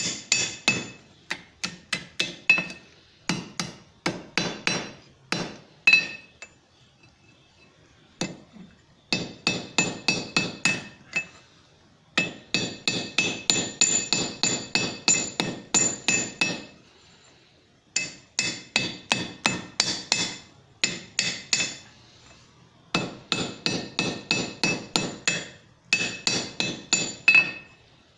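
Hand hammer tapping lightly and quickly on a red-hot steel Turk's head knot seated in a cup swage on the anvil, about four taps a second in runs of a few seconds with short pauses, each tap giving a metallic ring. The gentle taps take up the slack and tighten the knot into a ball.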